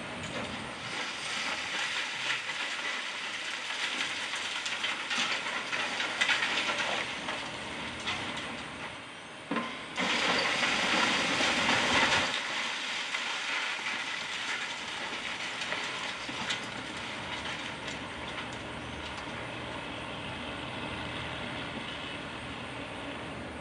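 Wrecking-ball demolition of a brick and concrete building: rubble clattering and crashing down, with the loudest crash starting suddenly about ten seconds in and lasting about two seconds, then a steadier, quieter noise of settling debris.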